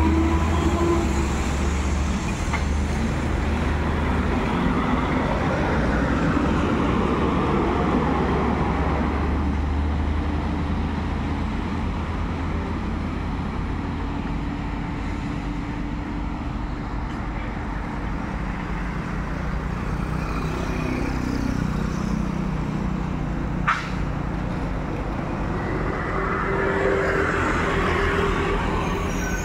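Road traffic: vehicles passing with engine rumble and tyre noise swelling and fading, plus one short sharp sound near the end.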